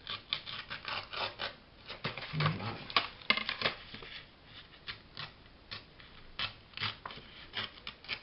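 Scissors snipping paper: a run of short, irregular snips and small paper rustles while a printed image is trimmed to size.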